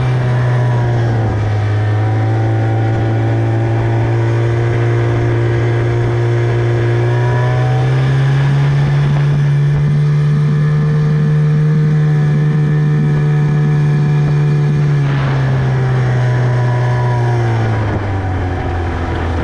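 Tohatsu 25 outboard motor running. Its note dips slightly at first, rises as the revs come up about eight seconds in, holds there for several seconds, then falls back near the end.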